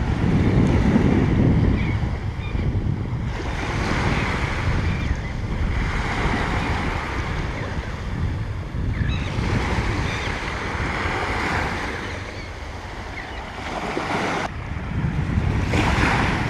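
Surf breaking and washing up the beach in repeated hissing surges, several in a row, under a steady low rumble of wind on the microphone.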